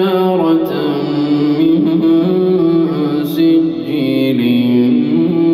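Quran recitation: a man's solo voice chanting Arabic verses in melodic tajweed style, holding long notes that step up and down in pitch.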